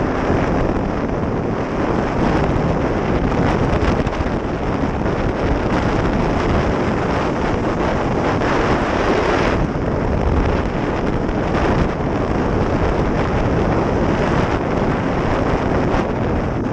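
Steady wind rushing over the microphone of a camera riding on a moving sport motorcycle, mixed with the bike's running and road noise.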